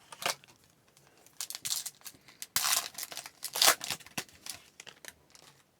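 A trading card pack's foil wrapper being torn open and crinkled, in a run of short, sharp rips and rustles, loudest around the middle.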